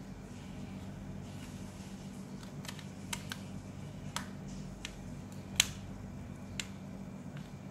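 Sparse sharp clicks and taps, about eight, of a small Torx key and fingers against the plastic and metal parts of a car door-mirror frame as the turn-signal unit's screws are driven back in. The loudest click comes about halfway through, over a steady low hum.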